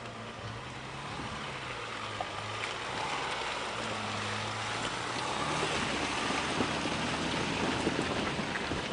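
Toyota Hilux's 2.8-litre four-cylinder diesel engine running at low revs, then its tyres splashing and churning through muddy puddles, the splashing growing louder in the second half.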